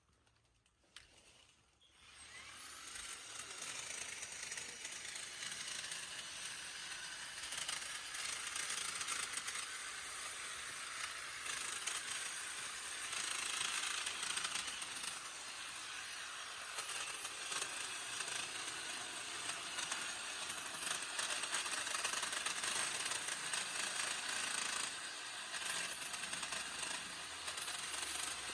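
EGO battery multi-tool with hedge trimmer attachment, its reciprocating blades running and chattering through woody hedge branches, starting up about two seconds in and running on with its level rising and falling as it cuts.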